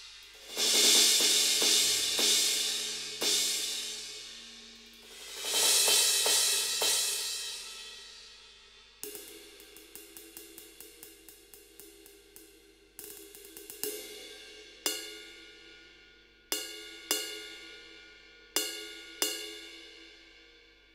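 Roland TD-17KVX electronic drum kit cymbal sounds. First come crashing cymbals with a few low drum hits under them. About nine seconds in there is a quick run of cymbal strikes, several a second, then single pitched cymbal strikes a second or so apart, each left to ring out and fade.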